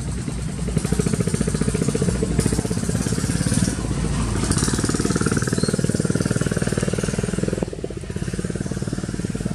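A small engine running steadily with a fast, even pulsing beat, a little quieter about eight seconds in.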